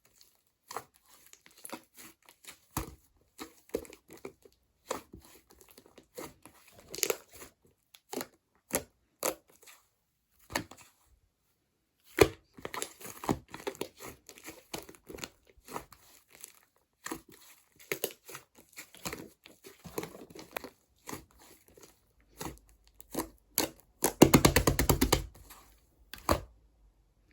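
Slime being squished and pressed by hand, making short sticky clicks and pops. Near the end there is a louder, rapid run of crackling pops.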